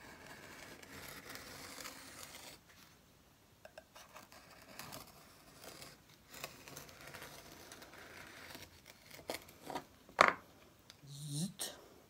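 Knife blade scraping and cutting through a soft clay slab around the edge of a round form: faint scratchy cutting with small clicks, and a sharp knock about ten seconds in.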